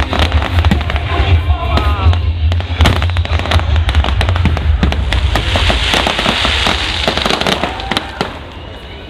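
Fireworks display finale: a dense barrage of sharp cracks and bangs over a heavy low rumble, with a fizzing crackle in the middle, dying away near the end.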